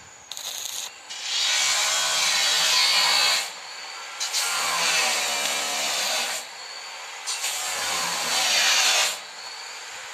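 Stick (MMA) arc welding on square steel tubing: the electrode crackles and hisses in three runs of about two seconds each, with short pauses between them. A brief strike comes just before the first run.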